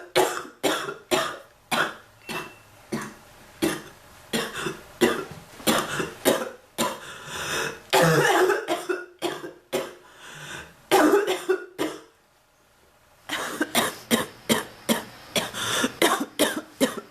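A woman coughing over and over in fits of short, sharp coughs, with a couple of longer, harsher coughs in the middle, a short pause about twelve seconds in, then another rapid run. It is the persistent cough of an illness she has been unable to shake.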